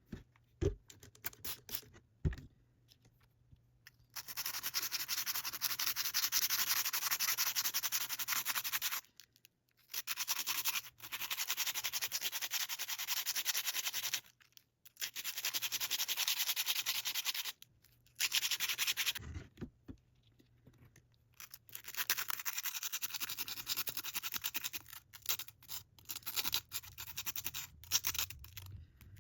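Abrasive scrubbing on a rusty metal hand tool to polish the rust off: a steady, hissy rubbing in long stretches broken by short pauses, with a couple of light knocks near the start.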